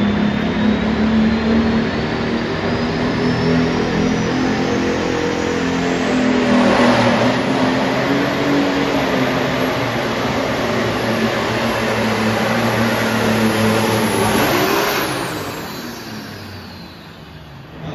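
Light pro stock pulling tractor's turbocharged diesel engine running hard under load, with a turbo whine that climbs over the first several seconds and holds high. About fifteen seconds in, the whine drops away and the engine sound falls off as the pull winds down.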